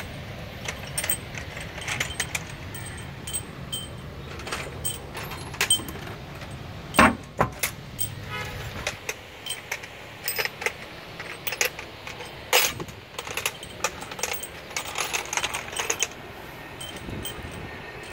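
Metal clinks and knocks as a Kubota V3300 diesel cylinder head is set down onto the engine block and its parts are handled: a scattered run of light clicks with a few louder clanks, the loudest about seven seconds in and again midway.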